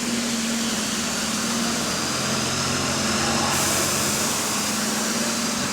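Bus engine running steadily with a constant low hum and a hissy, noisy edge, on a bus with a slight exhaust leak. A brighter hiss joins about halfway through.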